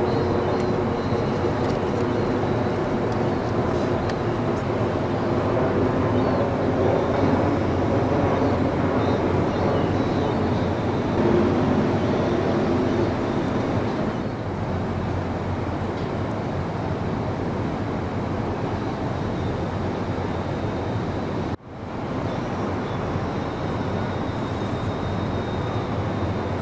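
Steady drone of the diesel-electric Jumbo Mark II ferry Wenatchee's engines across the water, mixed with wind and water noise. A humming tone in the first half fades out about 14 seconds in, and the sound breaks off for an instant about 22 seconds in.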